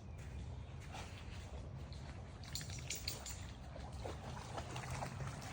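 A dog wading in a shallow creek: faint water sloshing and trickling, with a few small splashes about halfway through.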